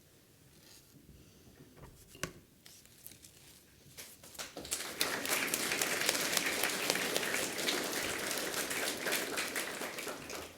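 A large audience clapping, starting about halfway through and going on steadily before stopping sharply near the end; before that, only a few scattered claps and small knocks.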